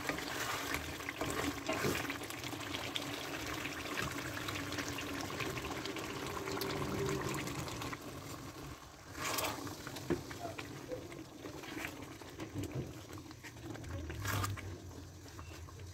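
Chicken curry gravy sizzling and bubbling in a large karahi as it is stirred with a wooden spoon. The sizzle drops to a quieter simmer from about eight seconds in, once cream is poured in. There are two sharp knocks of the spoon against the pan, about nine and fourteen seconds in.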